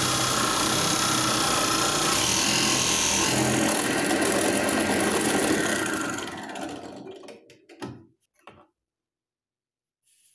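Bench drill press motor running and boring a deep hole in wood. It is switched off about six seconds in and winds down, followed by a few light knocks.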